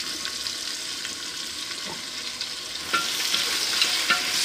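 Sliced onions sizzling in hot oil in a pressure cooker as they are stirred, with small clicks and scrapes of the spoon against the pot. The onions have just gone into the oil and are frying toward browning; the sizzle grows louder about three seconds in.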